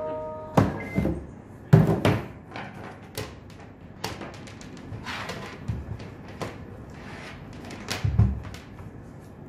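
Plastic carry case and a handheld insulation resistance tester being handled: a string of knocks and clatters, with a heavier thump near the end as the meter is set down on the table.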